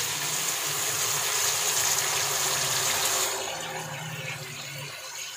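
Sugar syrup poured in a stream into hot ghee in a wok, sizzling and bubbling hard as the syrup hits the fat; the sizzle eases off somewhat a little past halfway.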